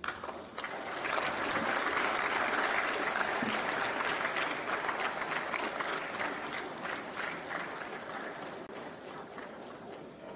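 Audience applauding, swelling about a second in and slowly fading toward the end.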